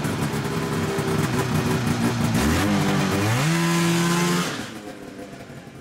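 Snowmobile engine running just after being started, revving up about two and a half seconds in and holding there, then dropping away sharply near the end.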